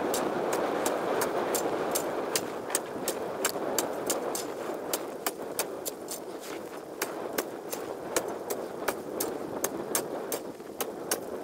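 Steel ice chisel (pешня) chopping a hole in river ice: about two to three sharp strikes a second, some much louder than others. Under the strikes runs a steady rushing of wind.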